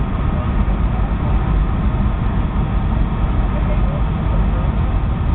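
Steady cabin noise inside a Boeing 757-200 descending to land: an even, unbroken roar of engines and rushing air, heaviest in the low range.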